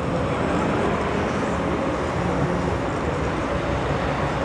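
Steady background din of a large exhibition hall, with faint distant voices in the wash.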